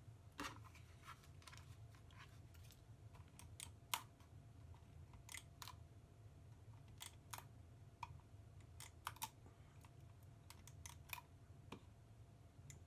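Scattered faint clicks and ticks of a handheld tape runner laying adhesive and of paper being handled, with one sharper click about four seconds in.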